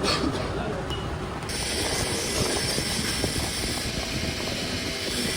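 Steady mechanical workshop noise with fast, irregular small clicks and rattles; a high hiss comes in about a second and a half in and stays.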